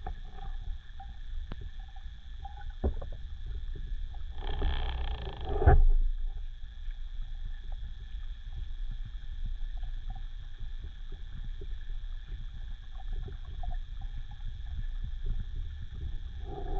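Underwater ambience picked up through an action camera's waterproof housing: a steady low rumble with faint crackling clicks and a thin steady high whine. A short rushing burst comes about four and a half seconds in and ends in a knock, with another brief burst near the end.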